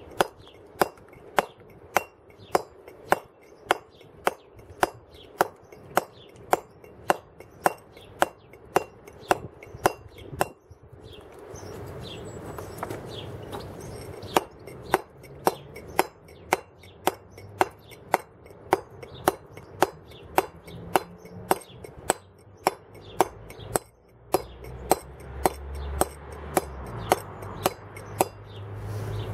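Wooden mallet driving a steel chisel into a block of stone, steady blows at about two a second as the carving is roughed out. The blows pause for a few seconds about a third of the way through, then resume at the same pace.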